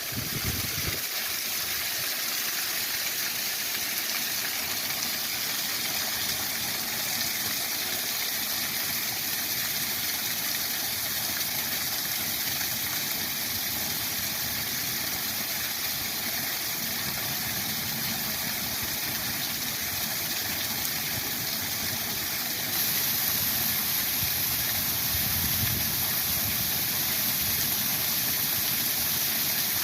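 Waterfall rushing steadily, an even hiss of falling water with no breaks; it steps up slightly in loudness about 23 seconds in.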